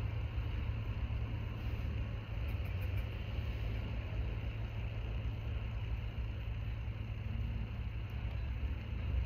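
Steady low hum with an even hiss, unchanging throughout: background room noise.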